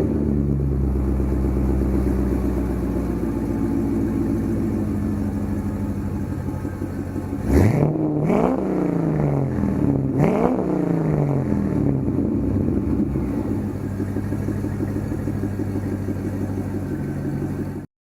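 1998 C5 Corvette's LS1 V8 idling steadily, revved twice with short blips about 7.5 and 10 seconds in, each dropping back to idle. The sound cuts off suddenly near the end.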